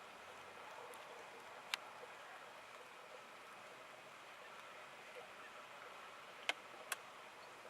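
Faint steady outdoor hiss, broken by three sharp clicks: one about two seconds in and two in quick succession near the end.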